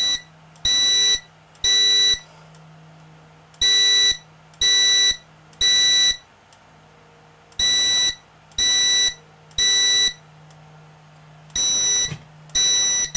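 Fire alarm on an EST Fireshield system sounding the temporal-three evacuation pattern: groups of three high-pitched beeps, each about half a second, with a pause of about a second and a half between groups, repeating steadily. A low steady hum runs underneath.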